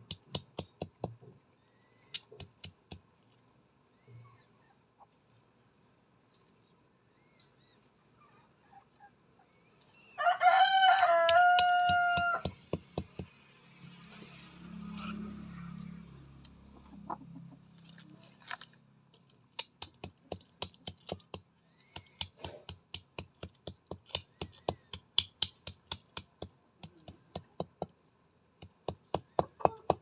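Chickens pecking at hard dirt close by: runs of sharp, rapid beak taps. A rooster crows once about ten seconds in, a single call of about two seconds, and a low hum follows for a few seconds.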